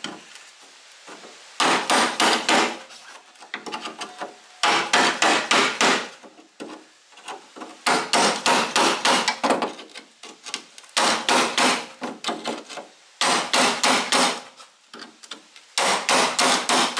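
Steel hammer blows on a cut-down claw-hammer wedge driven under the edge of a car's front-guard panel. The blows come in six quick runs of about five to eight strikes each, with short pauses between the runs. The wedge is splitting the panel's spot welds apart.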